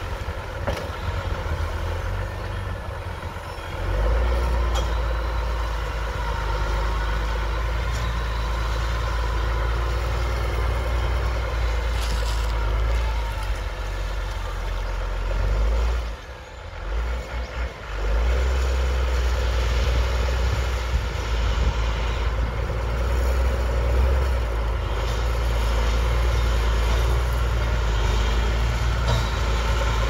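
SAME Laser 150 tractor's diesel engine running steadily under load, pulling a mouldboard plough, with a deep low rumble underneath that dips briefly about sixteen seconds in.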